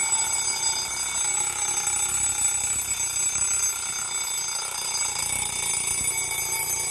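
Bell of a Soviet mechanical alarm clock ringing continuously, an unbroken metallic ring at a steady level.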